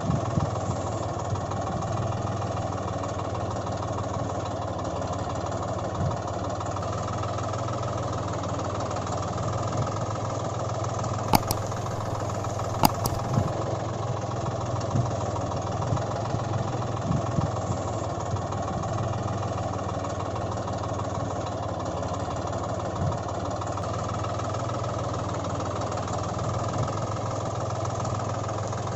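Steady engine idling sound with a constant low hum. Two sharp clicks come about eleven and thirteen seconds in.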